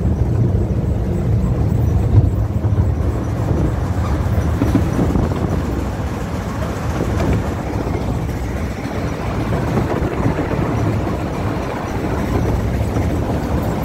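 Steady running rumble of a narrow-gauge Ffestiniog Railway train in motion.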